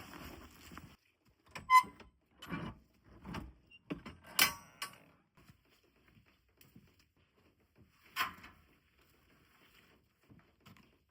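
A series of scattered knocks and clicks with quiet between, the loudest a sharp click about four seconds in and another about eight seconds in.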